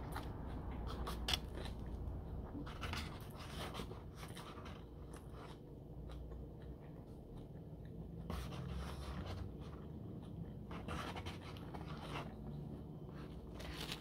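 Faint scattered clicks and rustles of hands moving things about on a table, over a low steady hum.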